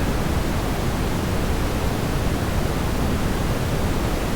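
Steady rushing of a waterfall, an even hiss-like roar of falling water with no change.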